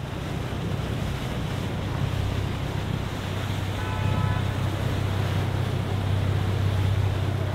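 Sunseeker motor yacht's engines running with a steady low rumble as it cruises past, over the wash of water along its hull, with wind on the microphone.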